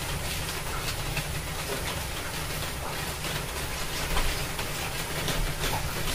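Cooking oil ladled into a hot non-stick frying pan on a gas burner: a steady hiss with scattered light crackles.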